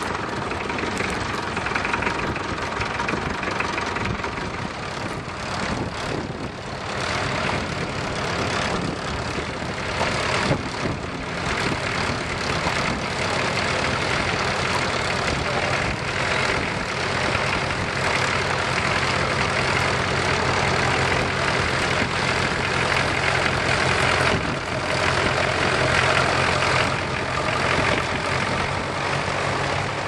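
Vintage tractor engine running steadily while pulling a mounted plough through stubble, its note a little louder in the second half as the tractor comes close.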